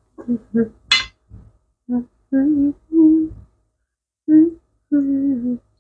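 A woman humming a tune in short held notes, with a short pause about two-thirds of the way through.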